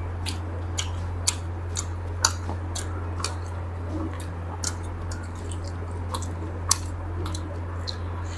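Close-up chewing of a chicken leg piece: irregular wet mouth clicks and smacks, several a second, over a steady low hum.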